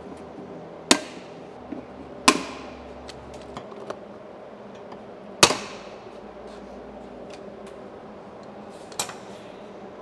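Hand pop-rivet gun setting rivets through the snorkel spigot's flange into the airbox: three sharp snaps as the rivet mandrels break, with a few lighter clicks between and one softer snap near the end.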